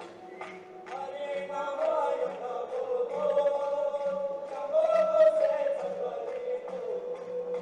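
A group of men singing a Balti folk song together in unison, joined by hand clapping. The singing swells about a second in and is loudest around the middle.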